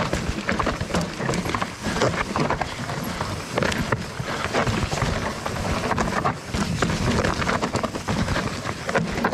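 Nordest Bardino steel hardtail mountain bike rattling down a rocky trail: tyres crunching over rock and gravel and a constant clatter of knocks from the rigid frame and drivetrain, with a steady rush of wind on the action camera's microphone.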